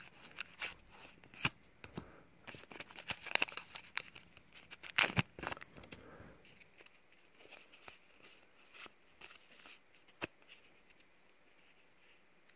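Pokémon TCG booster pack's shiny plastic wrapper crinkling and tearing open, with a run of sharp crackles and a loud snap about five seconds in. Then fainter rustling and clicks as the stack of cards is slid out and handled.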